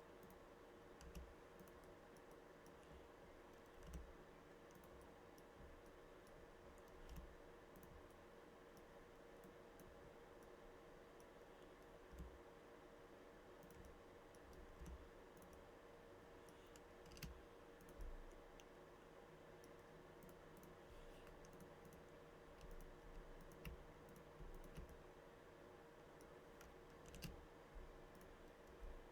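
Faint, scattered clicks of a computer mouse and keyboard keys, a dozen or so spread unevenly, over a low steady hum.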